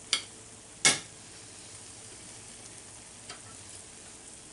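A metal fork clicking sharply against a dinner plate twice in the first second, then once more faintly, over a steady low hiss.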